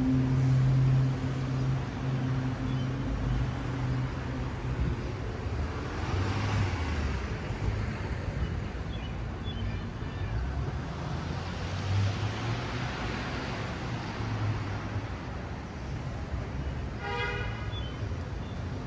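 City street traffic: a steady low engine hum, cars passing twice, and a short pitched toot near the end, like a car horn.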